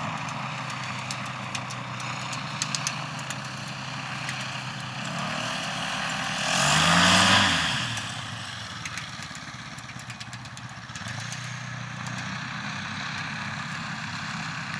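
Kolb Firestar ultralight's Yamaha Phazer snowmobile engine and propeller running as the aircraft taxis on grass. About seven seconds in it passes close by and gets louder, its pitch falling as it goes past, then it settles back to a steady drone as it moves away.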